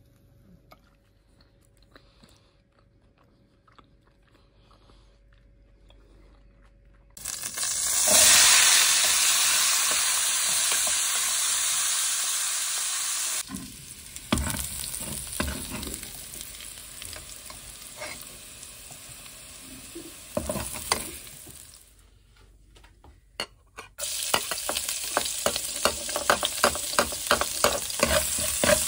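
Menudo ingredients hitting hot oil in a pan. A sudden loud sizzle starts about seven seconds in and slowly dies down. Later comes a steadier sizzle with a spatula scraping and knocking against the pan as the food is stirred, about three strokes a second near the end.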